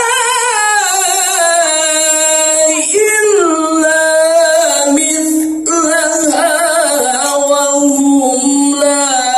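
Music: a woman singing a slow melody of long held notes with a wide vibrato.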